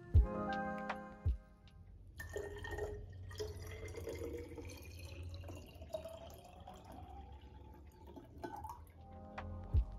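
Water poured from a copper bottle into a glass bottle, starting about two seconds in; the ringing pitch of the bottle rises steadily as it fills, and the pour stops near the end.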